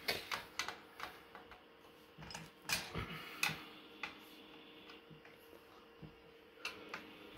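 Scattered light clicks and taps of a hand screwdriver on the screws and metal frame of an Antennas Direct ClearStream 5 antenna as the screws are checked for tightness. There are a few in the first second, a cluster around two and a half to three and a half seconds in, and a single one near the end.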